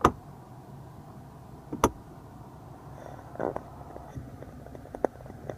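Two sharp knocks about two seconds apart, then lighter clicks and rustling, from the car's center armrest compartment lid and interior trim being handled, over a low steady hum.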